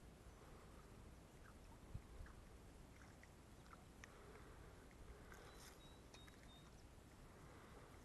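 Near silence: faint background hush with a few small clicks and a soft thump about two seconds in.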